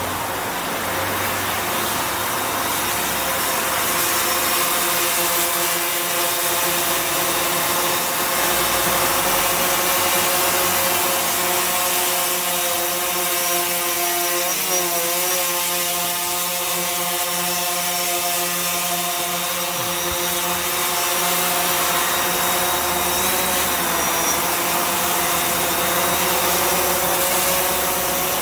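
DJI Phantom 4 Pro quadcopter's motors and propellers whining in flight, a steady buzz of several tones together whose pitch wavers briefly twice.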